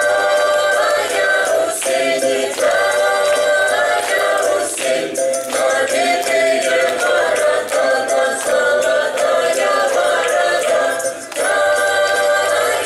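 A song with several voices singing together over music, in phrases that break off every few seconds.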